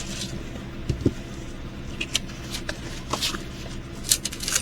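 Plastic packaging of a diamond-painting kit rustling and crinkling as it is handled, with scattered light clicks and taps.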